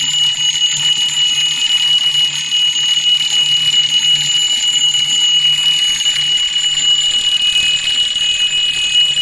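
Thunder-bell alarm clock's twin metal bells ringing continuously, struck by a small 3-volt electric motor on the clock's low ring-speed setting. A steady, loud, high ringing with no pauses.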